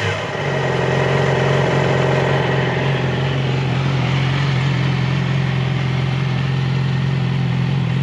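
2016 Yamaha YZF-R6's 599 cc inline-four idling steadily through an Arrow titanium slip-on exhaust.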